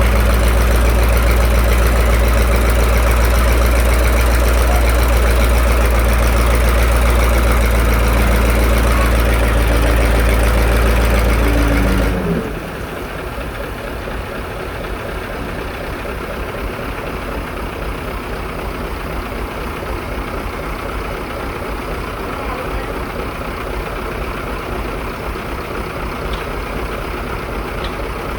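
Hydraulic static pile driver's engine and hydraulic power unit running steadily with a deep hum. About twelve seconds in the sound drops suddenly in level and turns into a rougher, noisier rumble.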